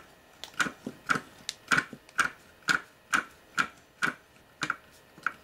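Ratcheting hand tool clicking about twice a second, a single click on each back-swing, as it loosens a grounding-point nut on the VCR drive's metal chassis.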